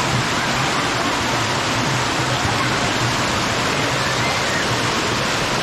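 Spring water running and rushing steadily, a continuous even hiss of flowing water.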